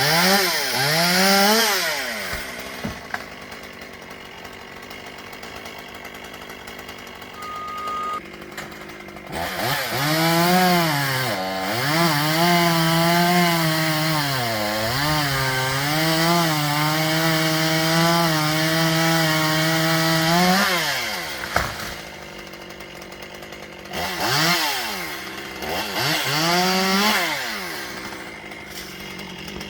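Two-stroke chainsaw revved briefly, idling, then held at full throttle for about ten seconds, dipping in pitch a few times as it works through wood. It drops back to idle and is blipped twice near the end.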